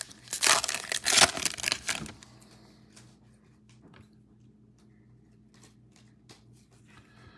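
A foil trading-card pack wrapper torn open and crinkled for about the first two seconds, then faint clicks of the stack of cards being handled in the fingers.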